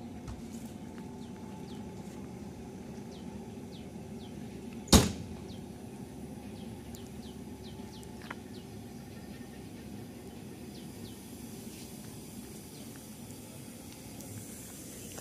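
Steady low hum from a standing WAP5 electric locomotive, with one loud, sharp metallic bang about five seconds in and a fainter click a few seconds later. Small birds chirp throughout.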